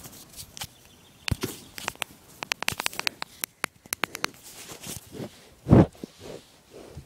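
Handling noise on a phone: a quick run of sharp clicks and taps, then one loud, short low thump or puff about six seconds in.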